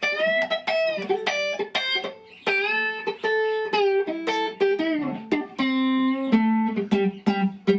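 Electric guitar playing a single-note blues lick with chicken picking, notes plucked alternately with a pick and the middle finger for a snappy, percussive attack. One note slides down in pitch about five seconds in, and a few notes are held near the end.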